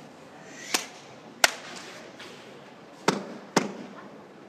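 Sumo wrestler's open palms slapping his own bare body as he readies for the bout: four sharp smacks, two close together about a second in and two more past the three-second mark.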